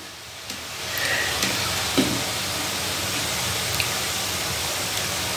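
Pieces of nimki dough deep-frying in hot oil in a kadai: a steady sizzle that swells about a second in, with a few light clicks.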